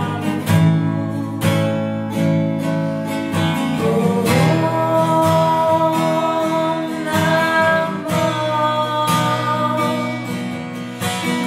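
Acoustic guitar strummed in a steady rhythm, accompanying two women's voices singing a mantra chant; the voices hold long notes from about four seconds in.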